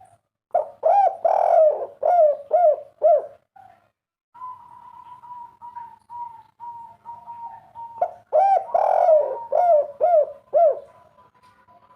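Spotted dove (tekukur) cooing its 'kuk 3' song twice, each phrase a run of six or seven quick arched coos. A thin steady tone sounds between the phrases and on under the second.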